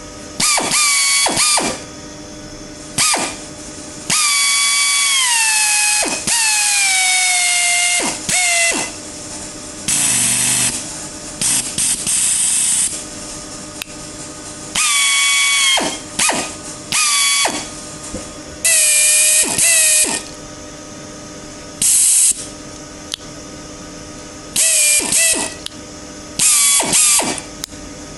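Pneumatic air drill run freely in about a dozen short trigger bursts of one to two seconds each: a high whine over a rush of air noise, its pitch sagging during the longer runs. This is the drill after its cracked rotor vanes were replaced, running at restored power and sounding clearly different from before the repair.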